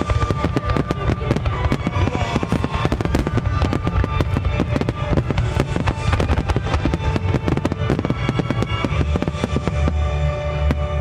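Aerial fireworks bursting in a dense, rapid barrage of bangs and crackles, with music playing underneath.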